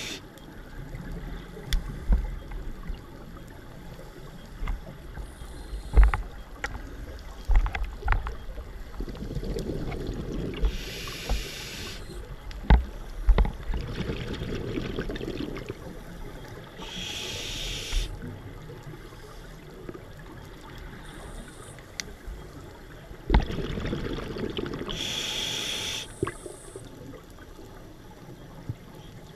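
Scuba regulator breathing heard underwater through a GoPro housing: three hissing inhalations several seconds apart, with the low gurgling rumble of exhaled bubbles between them and scattered sharp clicks.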